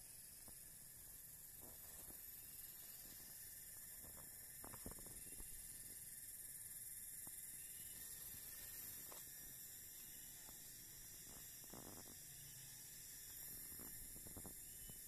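Near silence: a steady faint hiss and hum, with a few faint scattered ticks.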